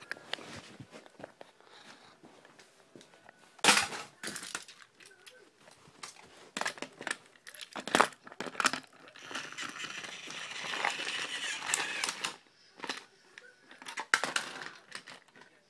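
Close handling noise: plastic toy train track pieces and a toy engine being knocked and moved about, with scraping and rustling right at the microphone. Several sharp knocks stand out, the loudest about four seconds in, at eight seconds and near the end.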